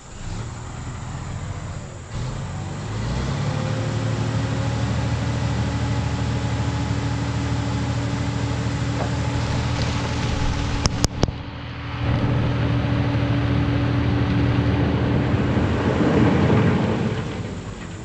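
Dump truck engine revved up and held steady to drive the hydraulic hoist as the tipper body rises. Near the end comes a rumbling rush as the load of dark crushed stone slides out of the bed.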